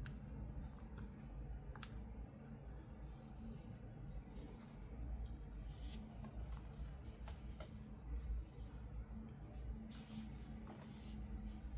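Hands handling doll packaging: scattered light clicks and short rustles, with a low steady hum underneath.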